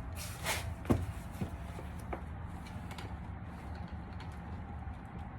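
A few light clicks and a short rustle from plastic door-panel parts and connectors being handled. One sharp click about a second in is the loudest, followed by a couple of fainter ticks, over a steady low hum.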